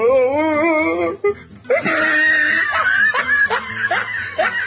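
Music with laughter: a wavering held note for about a second, then a run of quick laughs, each rising in pitch.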